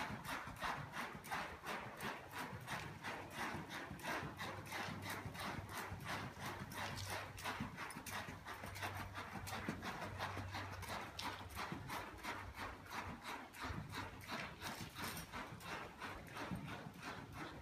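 Horse trotting on soft dirt arena footing: a steady, even rhythm of hoofbeats, about three a second.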